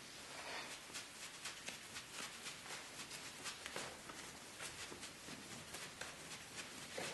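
Two people scuffling: irregular rustles, shuffles and light knocks from clothing, bodies and feet as they grapple and push each other.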